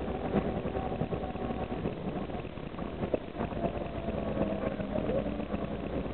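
Karosa B741 articulated city bus running under way, heard from inside the bus: a steady engine drone with rattles and a few sharp clicks from the body. A lower steady tone comes in about four seconds in.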